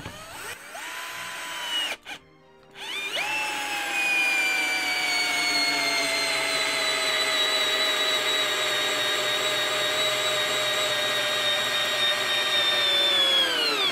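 Counterfeit Bosch GSR 18-2-LI Plus cordless drill-driver, in first gear on the drill setting, driving a 5 × 100 mm wood screw into timber. The motor whines in a short first run, stops briefly, then runs for about ten seconds, its pitch sinking slowly as the long screw goes in, and cuts off near the end.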